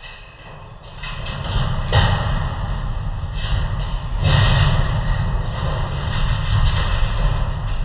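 Sounds of an indoor football game in an echoing hall: dull thumps and knocks over a low rumble, growing louder about a second in.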